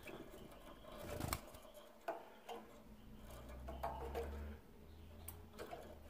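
Faint scattered clicks and light rustling of a caged European goldfinch hopping on its perch and wire cage. A low hum runs for a couple of seconds in the middle.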